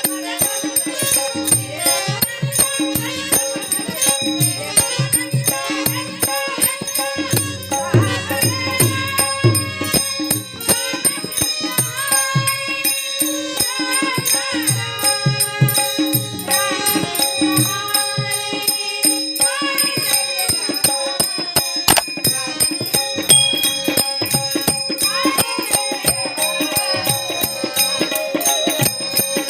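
Marathi varkari bhajan: a woman singing the devotional chant over held drone notes, with small hand cymbals (tal) striking a fast, even beat and a drum underneath.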